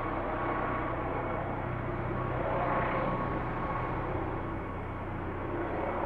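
Helicopter hovering: a steady rotor and engine drone with a low hum, swelling slightly and easing off again partway through.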